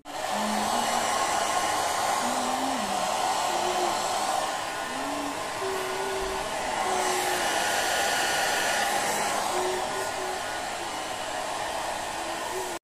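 Handheld hair dryer blowing steadily, a loud even rush that eases and swells a little as it is moved around while drying hair.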